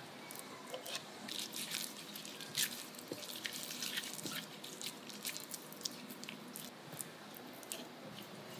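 Soft wet squelching and irregular small sticky clicks as a minced patty mixture is scooped from a bowl and pressed and patted into round patties between the hands.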